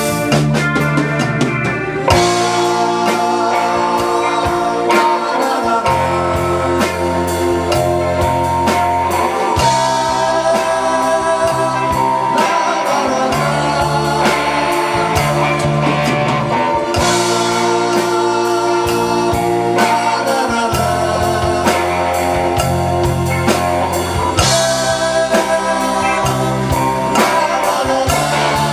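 Live band music with no sung words: a drum kit keeping a steady beat under a stepping bass line and sustained guitar-led melody, in a slow psychedelic rock style.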